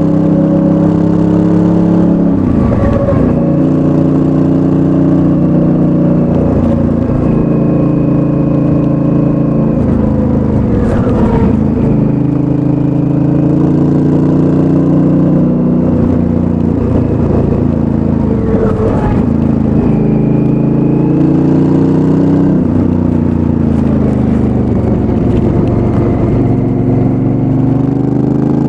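2019 Honda Africa Twin's 998 cc parallel-twin engine on its stock exhaust, running under way while the bike is ridden, its pitch rising and falling several times as it accelerates and eases off.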